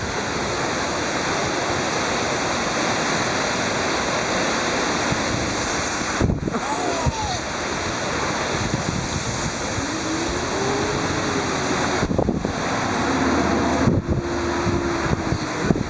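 Heavy thunderstorm rain pouring down, with gusts of wind buffeting the microphone: a steady, dense rushing hiss.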